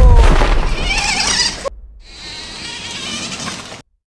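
Small electric motors of toy radio-controlled cars whining at high speed as the cars race off from the start, with a low thump at the very beginning. The sound breaks off twice for a moment.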